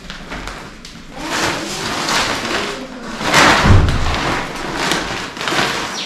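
A plastic sack rustling and crinkling as it is handled and closed off, with a heavier thump about halfway through.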